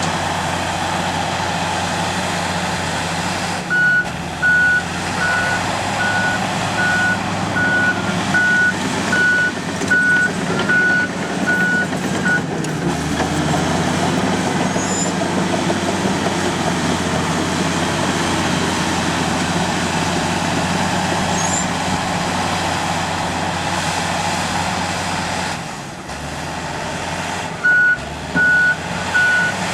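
Komatsu D85 bulldozer's diesel engine running under load, with a reverse alarm beeping steadily in two spells: from about four seconds in to about twelve, and again near the end, as the dozer backs up. The engine note shifts lower about twelve seconds in and dips briefly about twenty-six seconds in.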